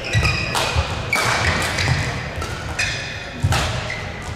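Badminton singles rally: sharp smacks of rackets hitting the shuttlecock about every second, with shoes squeaking and thudding on the court floor between shots.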